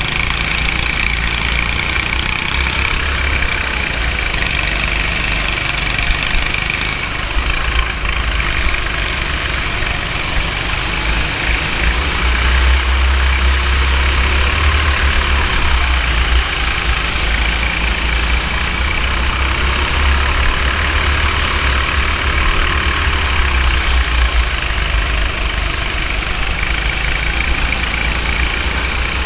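Go-kart engine running under way, heard from the kart itself, its pitch rising and falling, over a heavy low rumble.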